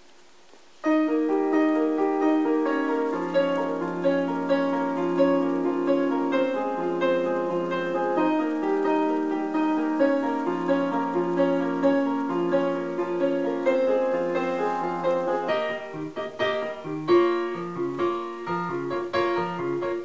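Piano-led music played back through a Sansui A-80 stereo integrated amplifier and loudspeakers, starting suddenly about a second in. It opens with held piano chords over a bass line, and from about three-quarters of the way through it turns into short, rhythmic, more percussive notes.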